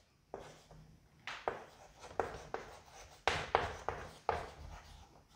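Chalk writing on a blackboard: a run of short, irregular strokes, quiet next to the surrounding speech.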